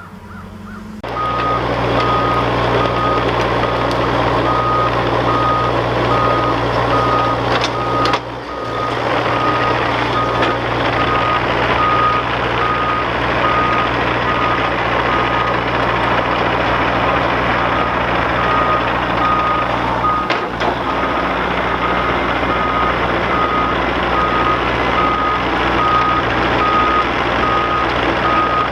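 Heavy diesel equipment running with its backup alarm beeping steadily at one pitch, about one and a half beeps a second, the machine moving in reverse; engine and alarm start about a second in.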